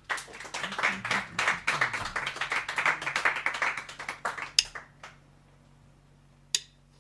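Crowd clapping and applauding in a slowed-down recording, the dense clapping dying away about five seconds in, with one lone clap near the end.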